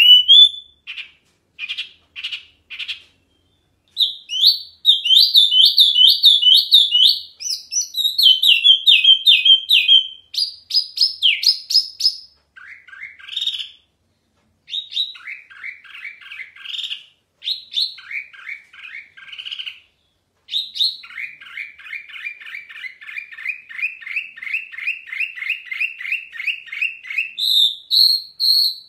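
Caged wambi mini songbird singing loud, clear, varied phrases of rapid high notes, broken by short pauses. Near the end it sings a long even trill of fast repeated notes, then a higher phrase.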